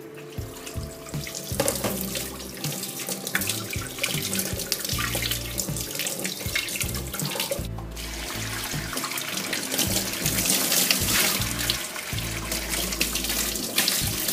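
Kitchen tap water running into a bowl and a steel sink as a ball of dough is rinsed and squeezed under the stream, washing the starch out of the gluten. The splashing breaks off briefly a little past halfway.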